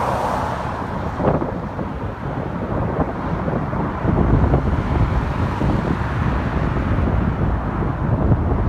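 Strong gusty wind buffeting the microphone as a low rumble, growing louder about four seconds in, mixed with road traffic noise.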